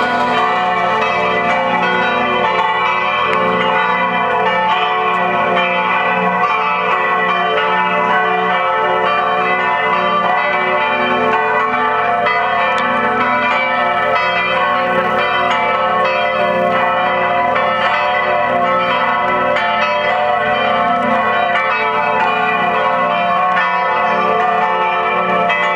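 Church bells pealing together, a continuous dense ringing of many overlapping bell tones at an even loudness.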